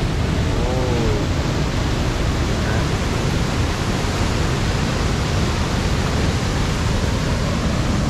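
Waterfall rushing steadily as the stream pours through the gap under a natural rock bridge.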